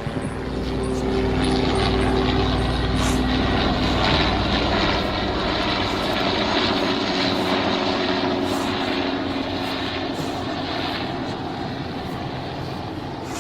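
Helicopter passing by: a steady engine and rotor hum that grows louder over the first couple of seconds, then slowly fades, its pitch dropping a little after it passes.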